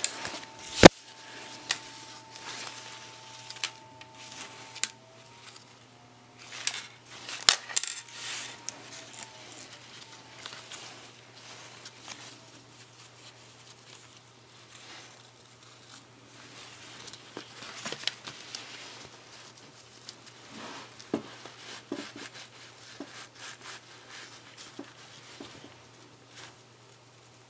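Hands handling fabric and a zipper on a sewing machine table: rustling with scattered small clicks and a few sharp knocks, the loudest just under a second in and around eight seconds in. A faint steady low hum runs underneath.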